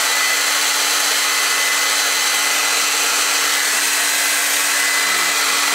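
Revlon Ionic Styler hand-held hair dryer running on its cold-shot setting: a steady rush of blown air over an even motor hum.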